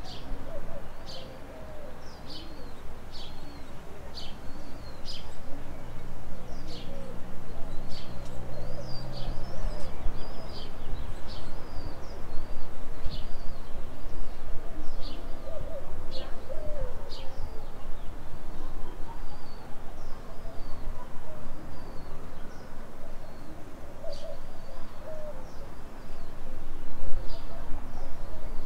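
Birds calling over a steady low city rumble: many short, sharp chirps, about one or two a second, thinning out in the last third, with a few warbling notes between them.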